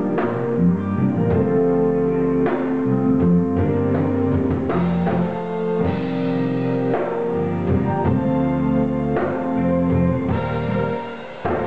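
A small live band rehearsing, with guitar and drum kit playing together.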